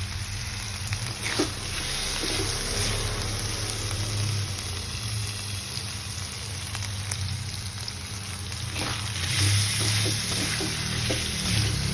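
Jengkol and small dried anchovies frying in hot oil: a steady sizzle over a low hum, with a few light knocks about a second in and again near the end.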